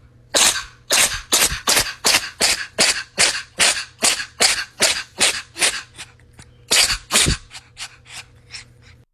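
A cat sneezing over and over in a rapid fit, about three sharp sneezes a second, with two louder ones about seven seconds in before the sneezes weaken near the end.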